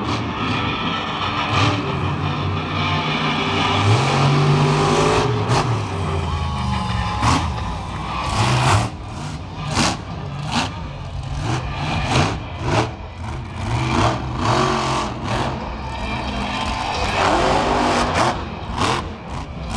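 Monster truck's engine revving up and down hard, with frequent sharp cracks and bangs mixed in through the second half.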